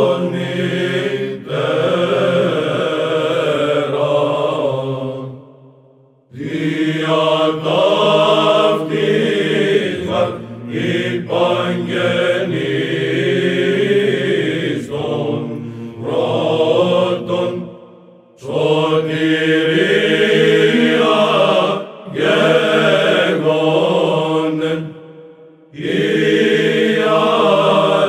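Greek Byzantine chant sung by a choir of male cantors in long melodic phrases, broken by a few short pauses for breath.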